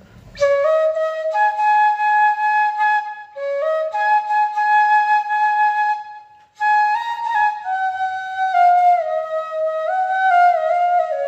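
C-sharp bansuri (bamboo transverse flute) playing a solo melody. It plays two phrases separated by a breath about six seconds in, and the second phrase steps down to end on a held low note.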